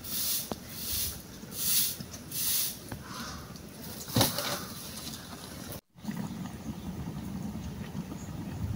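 Short straw hand broom sweeping bare earth in quick swishing strokes, about one every 0.7 s, then a knock about 4 s in. After a sudden cut, a steady low rumble.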